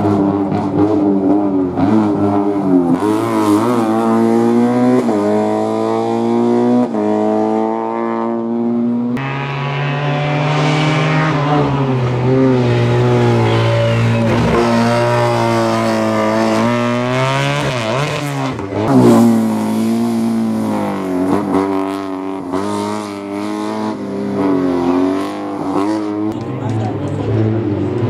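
Fiat 500-bodied slalom race car's engine revving hard, its pitch climbing and dropping again and again as the car accelerates, shifts and lifts off through the course.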